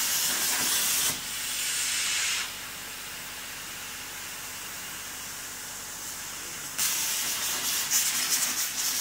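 Plasma cutter torch on a CNC table cutting steel plate. It starts with a loud hiss for about a second, then a softer hiss that stops about two and a half seconds in. The arc fires again near seven seconds in and cuts for about two seconds with a crackling hiss.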